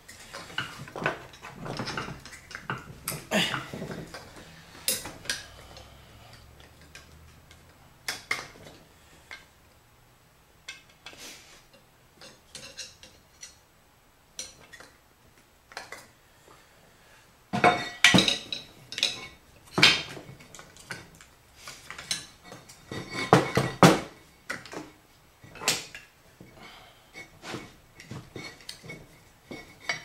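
Metal parts and tools handled on a workbench: irregular clinks, knocks and clatter, with quiet stretches between and the busiest flurries near the start and about two-thirds of the way through.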